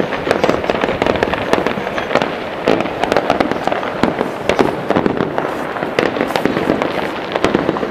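Aerial fireworks going off in a dense, continuous barrage: many sharp pops and bangs each second, with crackling between them.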